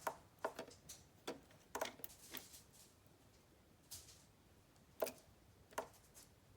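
About a dozen light, sharp clicks and taps at irregular intervals, some in quick pairs, the clearest a little after five seconds in.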